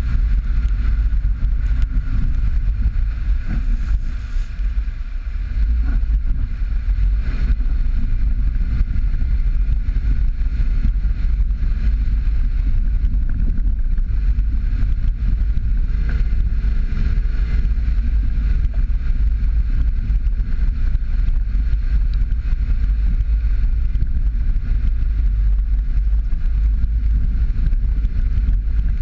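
Jeep Patriot driving on a rough dirt road: a loud, steady low rumble of engine and tyres, with wind buffeting the microphone.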